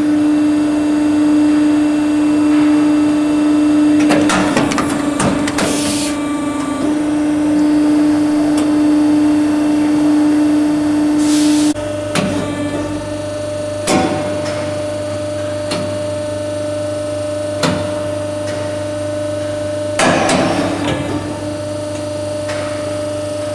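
Ormac shoe lasting machine running: a steady hum that drops in level about halfway through, with two short hisses of air near 6 and 11 seconds in and sharp clacks every few seconds.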